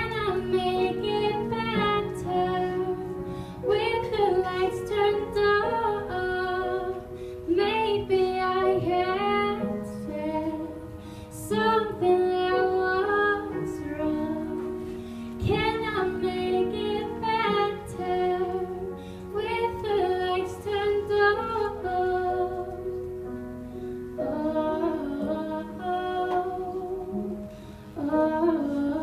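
A girl singing a solo song into a handheld microphone, in phrases with short breaks between them, over instrumental accompaniment that holds steady low notes.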